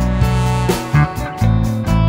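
Background music with guitar, its notes changing every half second or so over a strong bass.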